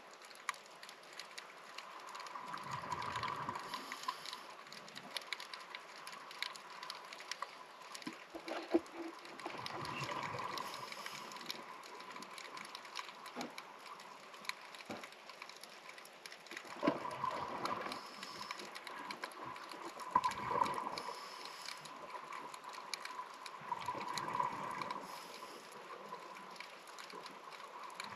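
Scuba regulator breathing heard underwater: five bubbly exhalations rushing out every few seconds. Between breaths there is a faint steady tone and scattered clicks.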